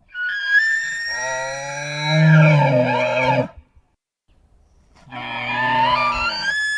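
Cartoon Parasaurolophus call sound effect, heard twice. Each call lasts about three seconds and starts as a high tone with many overtones. A deeper, lower voice joins it after about a second. The second call starts about five seconds in.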